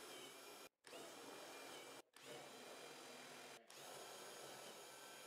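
Cordless drill running steadily with a motor whine as it bores holes through a plywood tabletop. It cuts out briefly three times, between holes.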